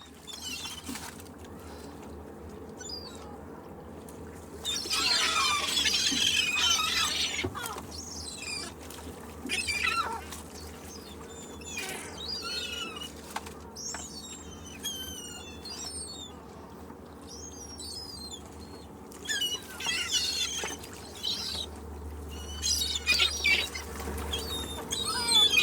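A flock of seagulls calling over and over with short squawks and mewing cries. The calls crowd together and are loudest about five to seven seconds in, then come in scattered bursts, over a steady low background rumble.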